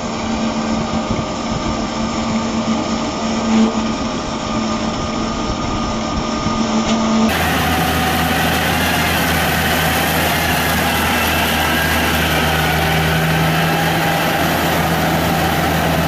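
Engines of farm machinery running steadily. About seven seconds in, the sound cuts abruptly to a different, louder engine with a lower, steady hum.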